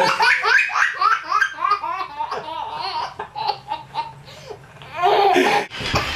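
Baby laughing hard: a fast run of short, high-pitched laughs, with a louder, longer stretch about five seconds in.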